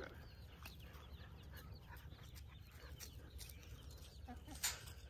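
Faint, scattered high chirps from birds, with light ticks. A single short knock comes near the end.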